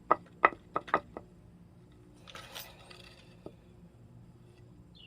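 A quick run of sharp clicks and knocks in the first second, then a short scraping rustle and one faint click: hard objects being handled and set down at a workbench. No power tool is running.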